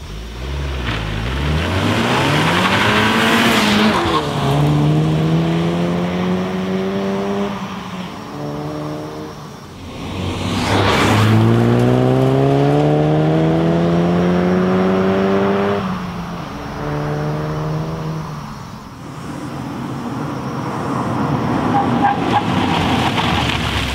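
2014 Volkswagen Golf GTI Mk7's 2.0-litre turbocharged four-cylinder engine pulling hard through the gears of its six-speed manual, twice: the pitch climbs, drops back at each upshift, and climbs again. Near the end the car approaches with rising engine and tyre noise.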